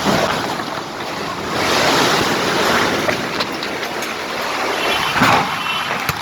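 Strong wind gusting through a rainstorm, buffeting the microphone, with louder surges about a second and a half in and again near the end.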